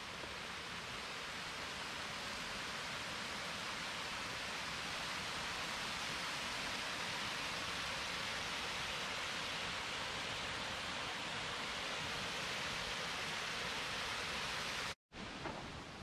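Small waterfall pouring over a rock ledge into a creek: a steady rushing hiss that grows slightly louder over the first few seconds, then cuts off suddenly near the end.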